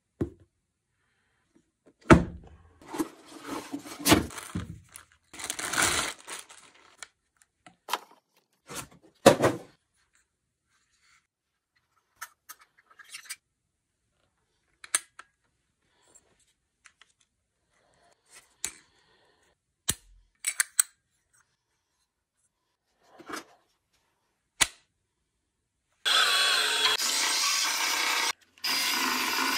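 Cardboard packaging being torn open and handled, then scattered clicks as the parts of a Milwaukee M12 Fuel 2482-20 18-inch bandfile are fitted together. Near the end the bandfile's motor and belt start up and sand wood with a steady whine. It cuts out for a moment and then runs on.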